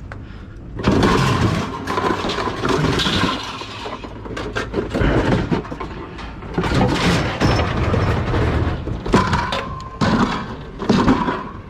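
Scrap metal and appliance parts being handled and dropped: repeated clattering and banging, with a short metallic ring near the end.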